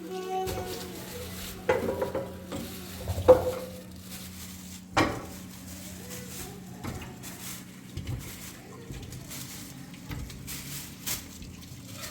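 Scattered knocks and clinks of household items being handled, like pots and utensils, the loudest about three and five seconds in, some ringing briefly. A steady low hum runs underneath.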